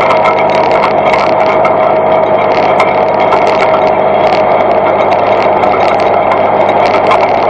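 Steady machine hum at a fixed pitch, unchanging throughout.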